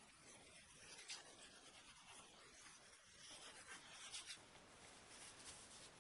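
Faint rubbing and rustling of disposable gloves as the hands roll a ball of snow-skin dough between the palms, a little louder about a second in and again from about three seconds in.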